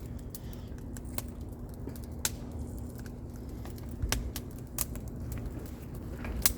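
Wood campfire crackling, with scattered sharp pops every second or so.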